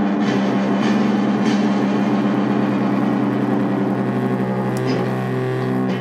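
Rock music led by electric guitar, with a chord held and ringing steadily.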